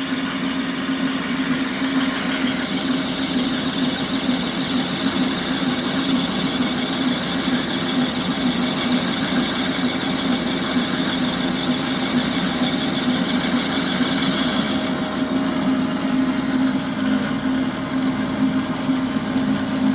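Clausing 4914 metal lathe, driven by its 1-horsepower three-phase motor, running steadily in direct drive with a constant hum. From about two and a half seconds in until about fifteen seconds in, a higher hissing whine rides on top as the tool takes a 30-thousandths cut, then stops while the machine keeps running.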